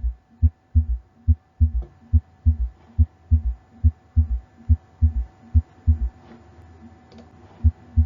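Stethoscope recording of a fast heartbeat with an added third heart sound (S3) after each second sound, so the low thumps come in quick groups of three. This S3 is the sign of a failing left ventricle with reduced ejection fraction in decompensated heart failure. The beats fade out for about a second and a half and return near the end.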